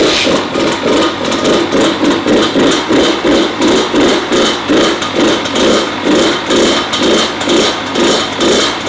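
Kawasaki KX100 single-cylinder two-stroke dirt bike engine running just after a fresh top-end rebuild, its sound swelling and fading about twice a second. It has a pinging in the exhaust, the 'popcorn' sound typical of a freshly rebuilt two-stroke.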